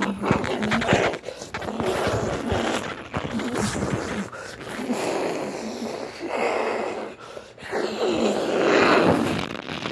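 Storm wind gusting against the building in surges that swell and ease, with scattered knocks and rattles.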